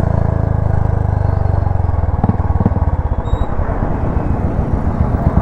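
Royal Enfield Classic 350's single-cylinder engine through a pea-shooter exhaust with the dB killer removed, running steadily under throttle. From about two seconds in it changes to a slower string of separate thumps with a few sharp cracks as the throttle is closed, the overrun backfiring the rider calls dangerous.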